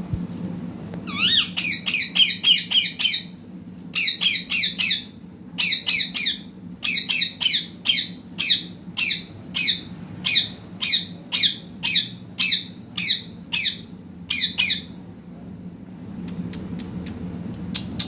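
Green parakeet squawking in long runs of short, harsh, high-pitched calls, about two to three a second, with a brief lull near the end followed by a quick series of faint high ticks.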